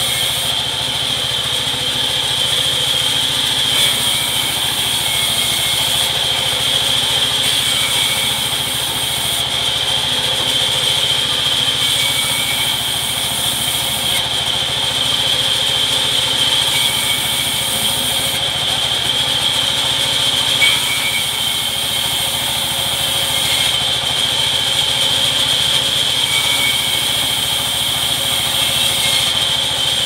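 Large band saw running with a steady high whine while it rips rain tree wood into small boards, its cutting noise rising and falling with each pass of the plank.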